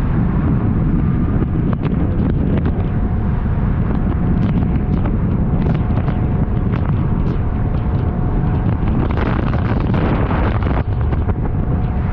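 Strong wind buffeting the microphone over a motorboat running at speed through choppy waves, with a faint steady engine whine and scattered short knocks and splashes from the hull meeting the waves.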